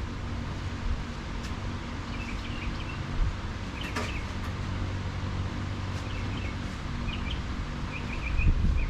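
Small birds chirping in short, repeated calls over a steady low hum, with a sharp click about four seconds in and a low knock near the end.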